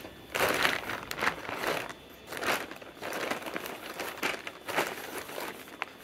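Plastic packaging crinkling and rustling in repeated irregular bursts as hands rummage in a plastic shipping bag and pull out a jerky pouch.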